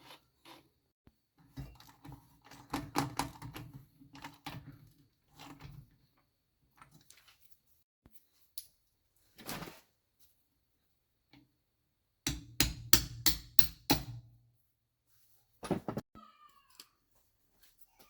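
Knocks, clunks and clicks of engine parts and tools being handled during a motorcycle engine rebuild, with a quick run of about six sharp knocks about twelve seconds in. Near the end a short, wavering high-pitched call is heard.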